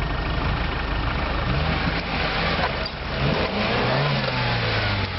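Suzuki Vitara's engine working under load as the 4x4 crawls through a muddy ditch, its pitch rising and falling twice as the throttle is worked.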